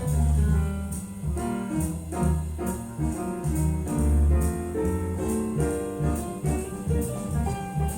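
Instrumental jazz break of a recorded song played back over a hi-fi system through a Sansui CA-3000/BA-3000 amplifier pair and four-way home-built speakers: piano over a moving bass line, with crisp high strikes keeping a steady beat.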